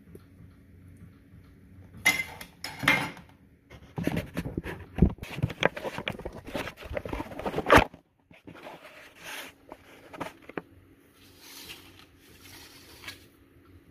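Scraping and clicking of a spoon against a glass baking dish as a caramel-glazed cinnamon roll is served, in bursts, with the densest stretch in the middle. The sound cuts out abruptly about eight seconds in, and softer handling noises follow.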